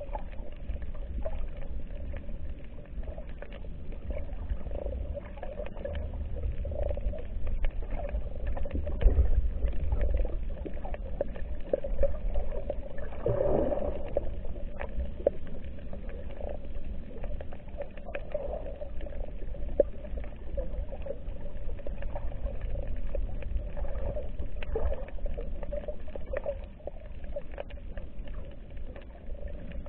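Underwater reef ambience picked up by a submerged camera: a steady low rumble of moving water with many scattered small clicks and crackles. There is a brief swelling whoosh about halfway through.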